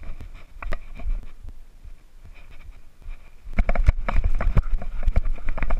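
Cannondale mountain bike rolling over a rough dirt trail, with scattered clicks and knocks at first. From about three and a half seconds in come dense, loud rattling and knocking of tyres over stones, chain and frame, over a low rumble.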